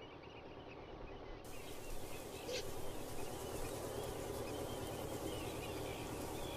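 Many small birds chirping and twittering over a steady background hiss, the chirping growing louder about two seconds in.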